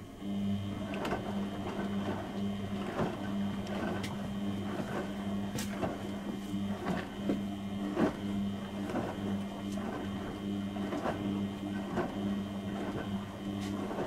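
Beko WM74155LS washing machine's brushed motor starting up just after the start and turning the drum in a wash tumble: a steady motor hum with irregular knocks and sloshing as wet, soapy laundry drops inside the drum.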